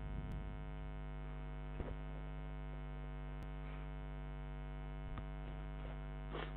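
Steady electrical mains hum in the microphone, with a couple of faint keyboard clicks as characters are typed.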